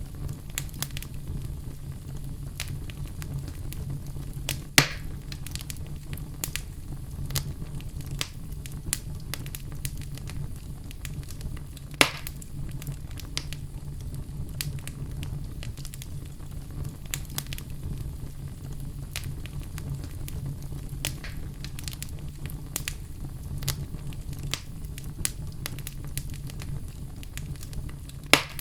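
Wood fire crackling in a fireplace: a steady low rumble under frequent small crackles, with three sharp, louder pops, about five seconds in, about twelve seconds in, and near the end.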